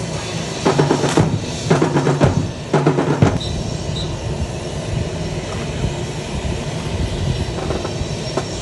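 Drill team's rifles being slapped, struck and handled in unison: three quick clusters of sharp clacks and claps in the first few seconds, then a steadier background with only light taps.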